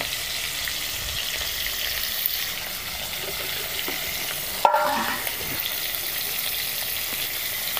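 Pieces of piyasi fish frying in hot oil in a kadhai, a steady sizzle, with a single short knock about halfway through.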